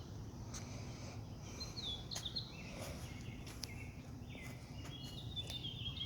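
Faint birds chirping in short notes over a steady low background hum, with a few light clicks.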